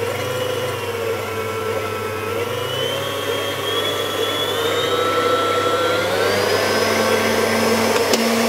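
Stand mixer running, its beater stirring dry ingredients into a gingerbread batter. The motor whine is steady at first, then rises in pitch about six seconds in as the speed goes up.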